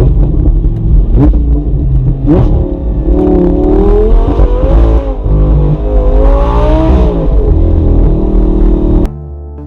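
Lamborghini Gallardo LP560's V10 engine revving hard as the car accelerates, its pitch rising and falling several times. It cuts off about nine seconds in and gives way to music.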